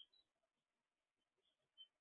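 Near silence, with a couple of very faint, short high chirps.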